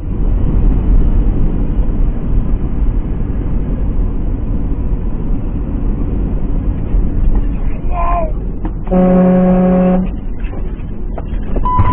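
Semi-truck cab running down the highway: a steady engine and road rumble. A truck air horn sounds once for about a second, about nine seconds in.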